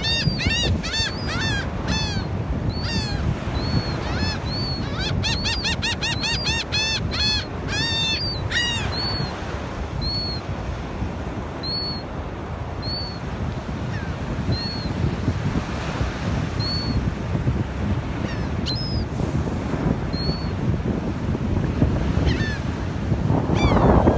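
Laughing gull calls: a fast run of repeated honking calls for the first nine seconds or so, then single calls about once a second, over steady wind and surf noise.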